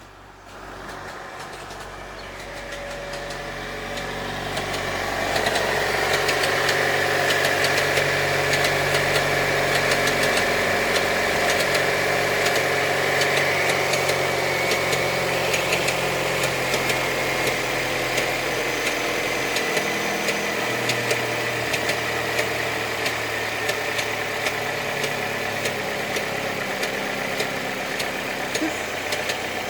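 Opel Astra G 2.2 engine idling steadily with a rapid, light ticking. The sound grows louder over the first five seconds, then holds level.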